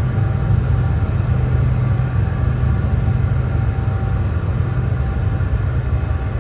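Brown noise: a steady, deep rushing hiss that is strongest in the low bass and falls away toward the treble, with no change or break.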